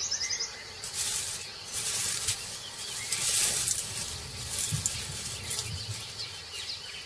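A tiger pushing through dry grass, which rustles in several swishes, with a few faint bird chirps near the start.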